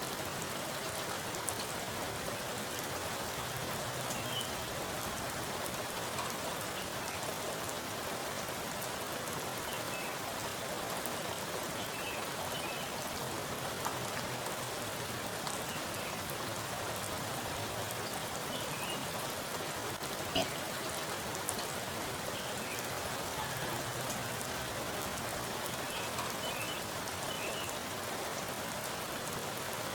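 Heavy rain falling onto a pool of standing water: a steady, even patter with single drops plinking into the surface, one drop louder than the rest about two-thirds of the way in.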